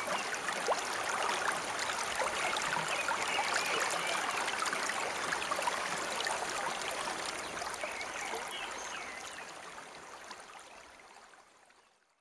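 Water of a shallow stream running over rocks, a steady rushing and trickling that fades out over the last few seconds.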